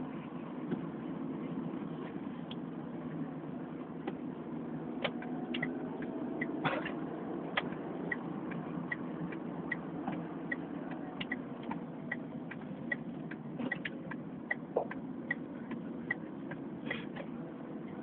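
A steady low rumble with scattered clicks. Starting about eight seconds in, an even light ticking comes in at about two and a half ticks a second and stops a couple of seconds before the end.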